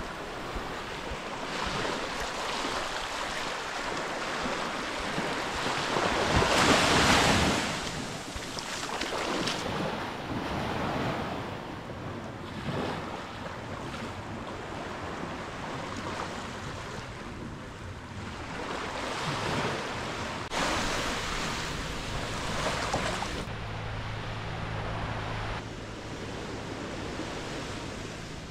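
Sea waves washing on the shore, with wind buffeting the microphone; the wash swells loudest about seven seconds in. A low steady engine hum comes in about two-thirds of the way through.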